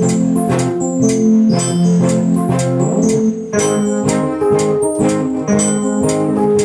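Electronic keyboard playing sustained organ-like chords and notes over a steady beat.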